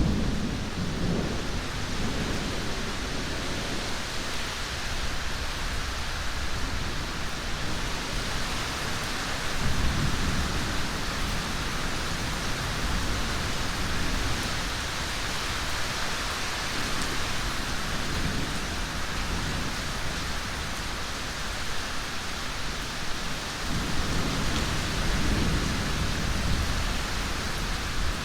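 Thunderstorm: heavy rain hissing steadily, with thunder rumbling low in the background, swelling about a third of the way in and again near the end.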